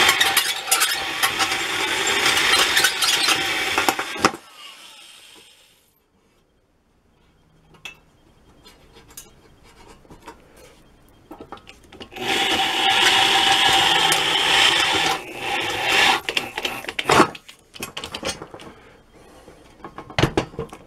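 Corded electric drill boring out a steel rivet that holds a wooden handle to a small shovel blade, in two bursts of about four seconds each: one at the start and one about twelve seconds in. Between and after them come small clicks and knocks of handling the rivet and the blade.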